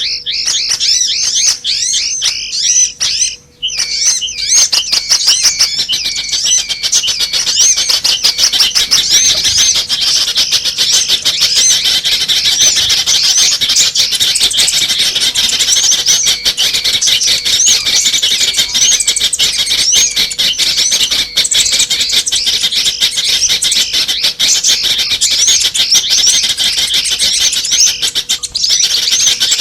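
Dense, rapid chirping and chattering of many small birds overlapping, a lure-call recording made to attract small birds, with a brief break about three seconds in. A faint steady hum runs underneath.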